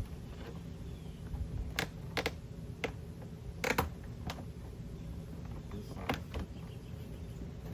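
Scattered sharp clicks and taps, about seven in all and the loudest in the middle, from a plastic trim cover and hand tools being worked on a truck door panel during removal. A low steady rumble lies under them.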